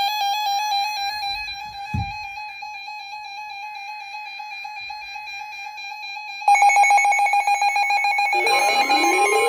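Electronic alert tone: a steady high beep with a stepping, warbling overtone pattern. It gets louder and pulses rapidly about six and a half seconds in, and rising siren-like sweeps join it near the end.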